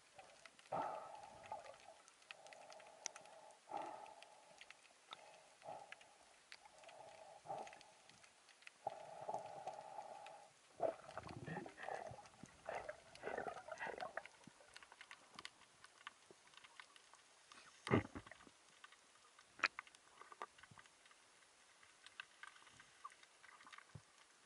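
Faint, muffled underwater noise heard through a camera housing worn by a freediver: irregular swishing bursts for the first half, then quieter, with scattered clicks and two sharp knocks about two-thirds of the way through.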